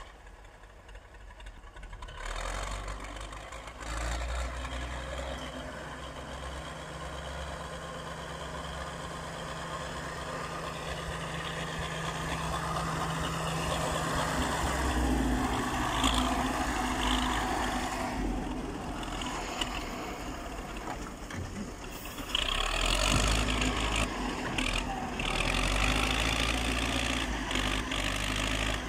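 Wheel loader's diesel engine running under load as it drives and works snow with its bucket. It gets louder about two seconds in, and again past the middle and near the end, with the engine note shifting as it revs up and down.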